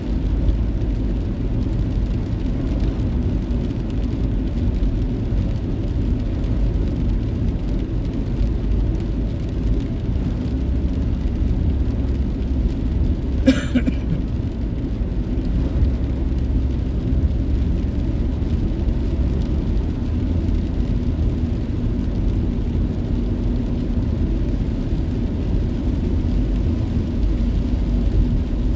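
Steady low rumble of a car's road and engine noise heard from inside the cabin while driving. A single sharp click comes about halfway through.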